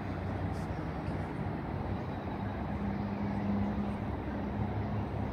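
Steady outdoor background rumble, like distant road traffic, with a low hum that swells for a second or two in the middle.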